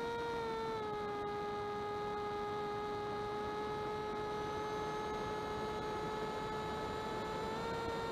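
Electric motor and propeller of an FPV flying wing whining steadily in flight, heard through the onboard camera. The pitch drops a little about a second in and rises back near the end.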